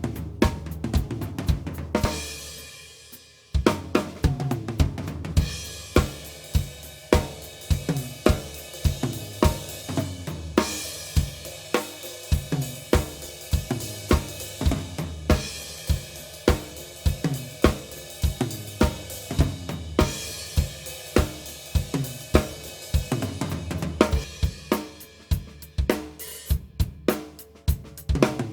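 A 1990s Mapex Mars Pro drum kit with mahogany/maple shells played with cymbals: snare, bass drum, hi-hat and crashes in a steady groove. About two seconds in, a hit is left to ring and fade for a moment before the playing picks up again.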